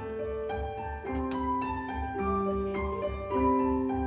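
Live band music between sung lines: piano notes struck and held in a changing pattern over a steady low pulsing beat.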